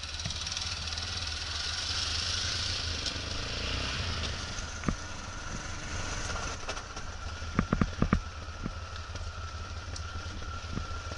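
Motorcycle engine running steadily at low speed on a rough gravel track, with a broad rushing hiss over it. From about two-thirds of the way in come several sharp knocks and clatters as the bike jolts over stones.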